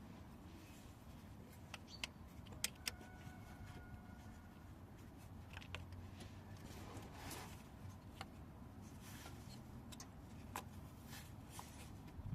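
Faint scattered clicks and clinks of metal hand tools and parts being handled, louder around two to three seconds in, one clink leaving a short metallic ring.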